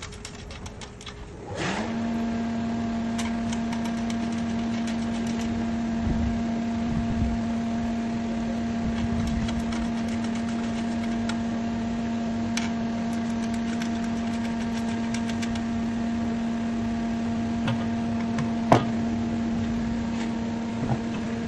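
Electric drill spinning up about two seconds in and then running at one steady speed while drilling a hole in stainless steel. Scattered light clicks and one sharp tick near the end sound over the motor's steady whine.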